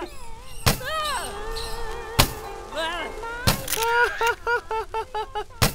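Four sharp cracks of blows in a beating, spaced about a second and a half apart. Between them a high voice wails and cries out.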